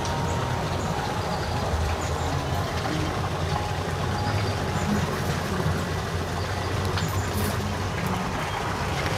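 Steady splashing of a running garden fountain, an even rush of water without break.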